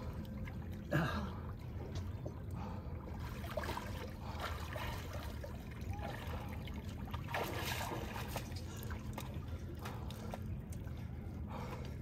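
Sea water splashing and lapping close to the microphone, with a sharper splash about a second in and a steady low rumble underneath.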